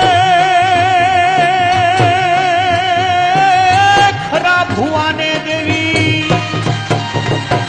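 Live devotional folk music from a bhajan ensemble: the lead melody holds one long note with a wide vibrato for about four seconds, then moves into shorter gliding notes, over a steady hand-drum rhythm.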